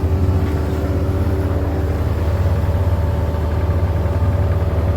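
A vehicle engine idling: a steady low rumble with an even fine pulse.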